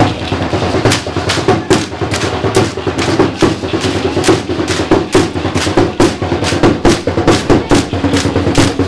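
Drums played for a traditional Mexican street dance, beating a steady quick rhythm of about three strokes a second.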